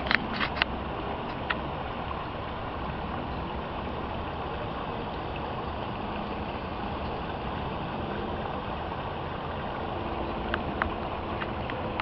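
Steady rush of water from a landfill sediment basin's discharge pouring down a rock-lined channel into the creek. A few sharp clicks break in about half a second in and again near the end.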